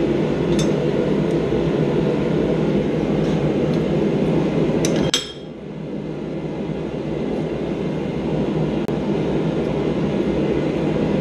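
Steel tongs and pliers clinking against a hot mild-steel snowflake blank clamped in a bench vise while its arms are straightened: a few sharp metallic clinks, the loudest pair about five seconds in. A steady rushing noise runs underneath, dipping sharply just after the loudest clinks and building back up.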